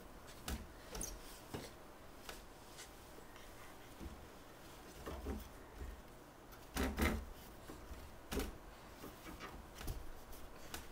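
Scattered soft knocks, bumps and rustles from a baby kicking and flailing in a crib, his feet and hands bumping the crib and the bedding, with louder knocks about seven and eight seconds in.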